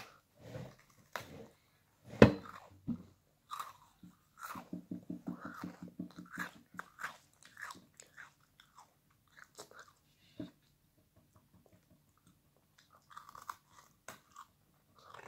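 A Lotus Biscoff caramelised biscuit being bitten and chewed: one loud crunch about two seconds in, then a quick, even run of crunchy chewing, fading to near quiet for a few seconds before a few more crunches near the end.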